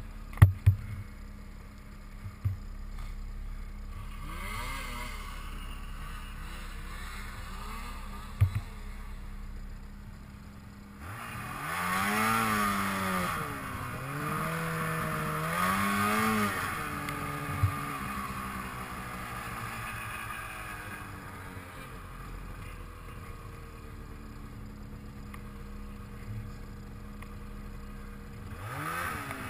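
Polaris snowmobile engine running through deep powder. Its pitch rises and falls in several revving surges about halfway through and again near the end, with a few sharp knocks along the way.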